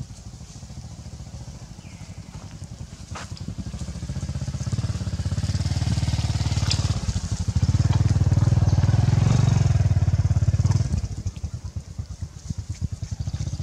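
An engine running, a steady low drone that grows louder over several seconds and then drops off sharply near the end; a few short clicks over it.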